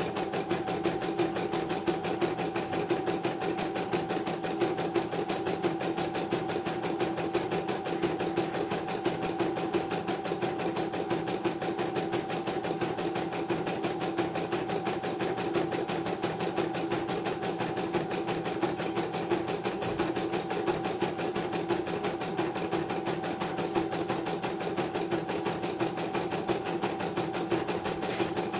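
A CNY portable computerised embroidery machine stitching a design on a test run: a rapid, even rhythm of needle strokes over a steady motor hum, with the hoop carriage stepping the fabric along.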